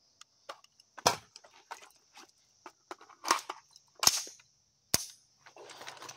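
Dry-fire reload and transition drill with unloaded guns, an AR-15 rifle and a Glock 19 pistol. There are four loud, sharp clicks of triggers and gun handling, with smaller clacks and rattles of the magazine change between them.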